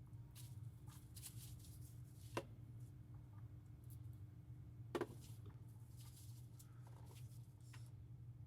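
Faint handling noises of small tools and metal mount parts on a workbench: light scrapes and rustles with two sharp clicks, about two and a half and five seconds in, the second the louder, over a steady low hum.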